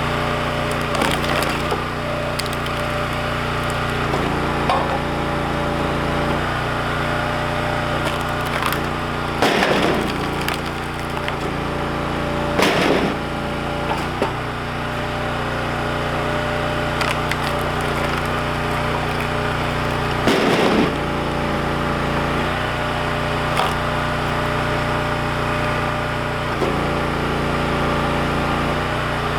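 Cherry logs being split with an engine-driven log splitter: a steady engine note that shifts a few times as it takes load, and three loud cracks of wood splitting apart.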